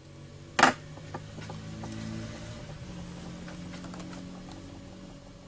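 A single sharp plastic snap about half a second in as the incubator thermostat's case is opened, followed by small scattered clicks of handling over a low steady hum.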